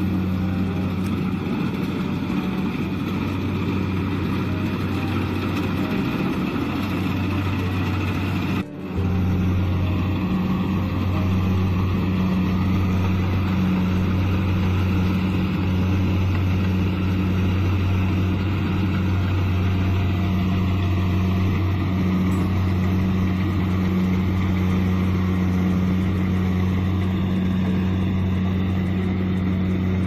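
Kubota DC-70 rice combine harvester's diesel engine running steadily under load while harvesting, a constant low drone with its threshing machinery. It briefly drops out about nine seconds in, then resumes unchanged.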